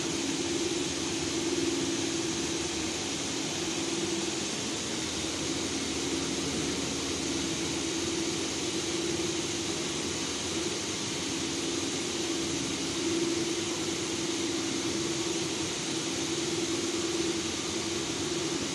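Steady workshop background noise: fan and air-conditioning hiss with a low machine hum that comes and goes every few seconds.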